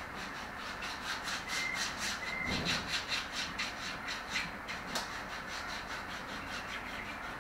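A pedicure foot file scraped quickly back and forth over the sole of a foot, making rhythmic rasping strokes about four or five a second, to rub off dirt and dead skin.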